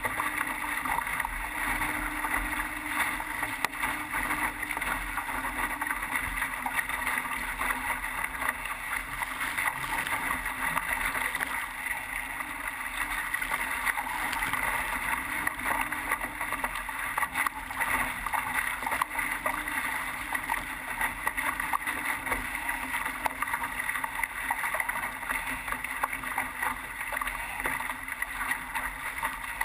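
Water rushing and splashing steadily along the hull of a Laser dinghy sailing at speed, heard from a camera mounted on its foredeck.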